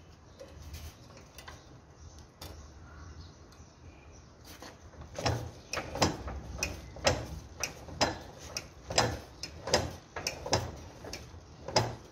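Iron wire cutting machine running: a low hum, then from about five seconds in a regular metallic clacking, roughly one and a half knocks a second, as its mechanism cycles.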